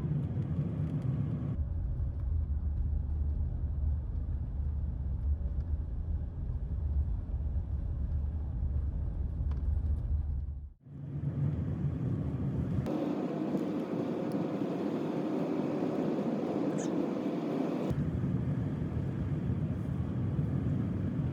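Steady rumble of a vehicle on the move, road and engine noise, changing abruptly between separate clips, with a brief dropout about halfway through.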